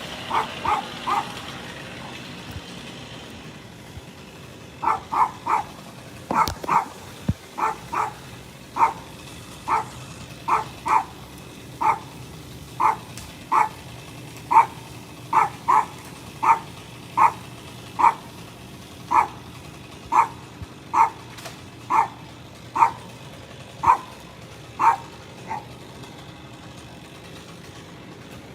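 A dog barking repeatedly in short barks, often in quick pairs or threes, about one or two a second, over a steady low background hum. The barking pauses for a few seconds just after the start and stops a few seconds before the end.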